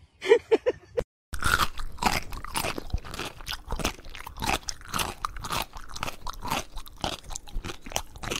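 A few short squeaks in the first second, then irregular crunching and chewing sounds as a cat mouths and bites at a sneaker.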